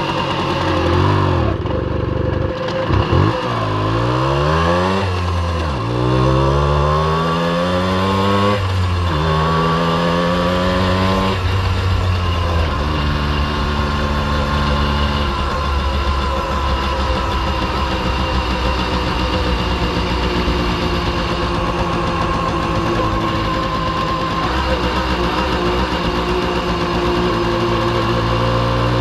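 Simson S51 B moped's 50 cc two-stroke single-cylinder engine pulling through the gears: the pitch climbs and drops sharply at each shift, several times in the first dozen seconds. It then runs at a near-steady pitch, cruising.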